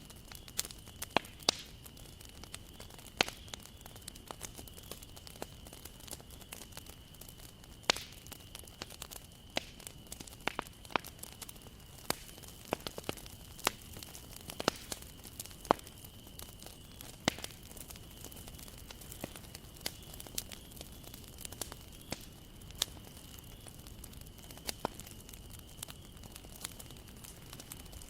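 Wood bonfire crackling, with sharp irregular pops several times a second over a low steady hiss of burning, and a faint steady high tone underneath.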